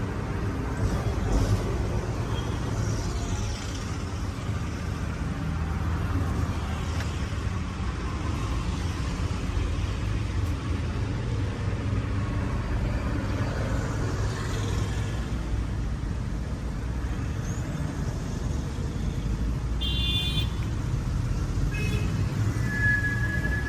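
Road traffic rumbling steadily, with a brief high tone with overtones about 20 seconds in.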